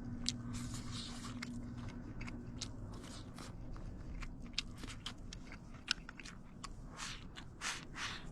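A person chewing crisp dry-fried cauliflower close to the microphone: irregular crunches and small clicks, a few louder crackles near the end.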